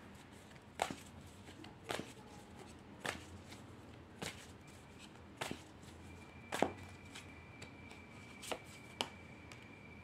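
Tarot cards being handled by hand: a series of sharp card snaps or taps, about one a second and eight in all, ending as a card is laid on the spread.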